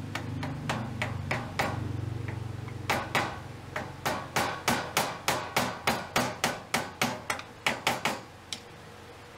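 Hammer tapping a small wood chisel to pare excess aluminum from the corner of an aluminum vise jaw: sharp strikes about three a second, with a short pause about two seconds in. A low hum underneath fades out in the first few seconds.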